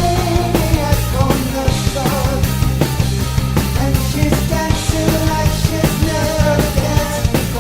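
Rock band playing an 80s dance tune with heavy, metal-style distorted guitar over a steady drum beat and bass.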